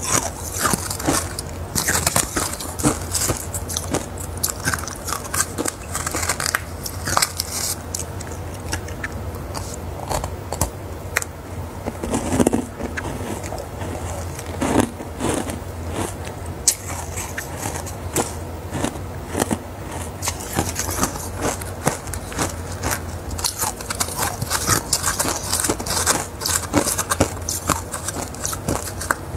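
Frosty ice balls bitten and chewed close to a lapel microphone: a dense run of crisp crunches and crackles, with a couple of louder, deeper crunches about halfway through.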